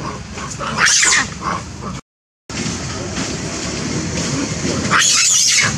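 Macaques giving two short, loud, shrill shrieks about four seconds apart, over a steady low rumble. The sound cuts out completely for half a second about two seconds in.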